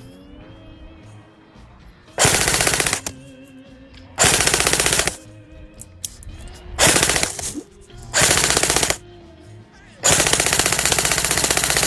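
Airsoft guns firing bursts of full-auto fire: four bursts of about a second each, then a longer burst starting about ten seconds in.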